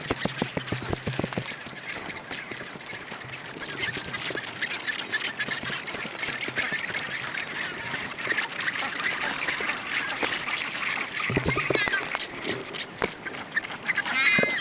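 Rockhopper penguin colony calling all around, many short cries overlapping, with close sharp knocks and taps. A few louder calls rise and fall in pitch near the end.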